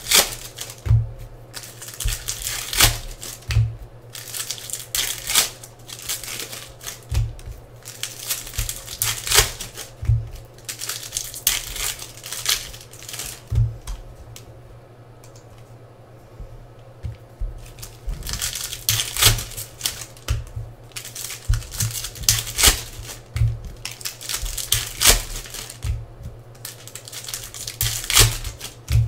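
Plastic-foil wrappers of Bowman baseball card packs crinkling and tearing as they are opened, mixed with quick clicks and snaps of cards being handled and stacked. A quieter stretch comes about halfway through.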